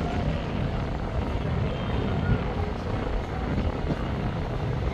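Wind buffeting the microphone as a steady, uneven low rumble, over faint outdoor background noise.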